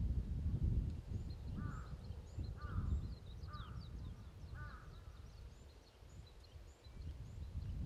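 A bird calls four times, about a second apart, with faint high chirps of small birds scattered throughout. A low rumble of wind on the microphone runs underneath.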